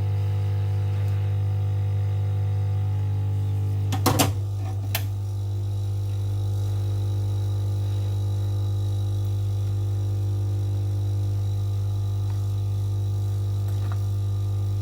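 Steady low electrical hum, like mains hum or a bench tool's fan, with a quick cluster of sharp clicks about four seconds in and one more click a second later.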